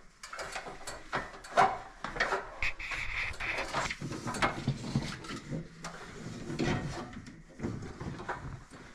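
Irregular handling noise: scattered clicks, knocks and rubbing as electrical cable is worked through wooden ceiling framing, with a brief squeak about three seconds in.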